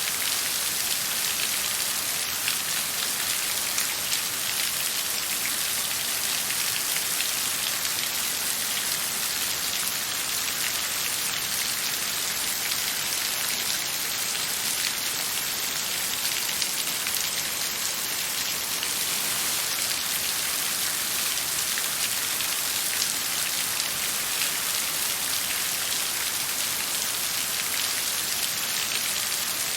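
Steady rain falling, an even hiss of many drops with fine patter throughout.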